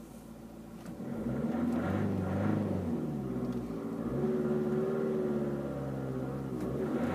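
2013 Vauxhall Zafira's engine revved while stationary, heard from inside the cabin. The pitch climbs from idle and falls back twice, peaking around 2,500 rpm.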